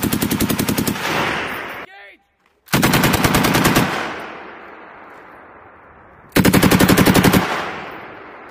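M240 7.62 mm machine gun firing three short bursts of rapid shots, each about a second long and followed by an echo that dies away over a couple of seconds; a fourth burst starts at the very end.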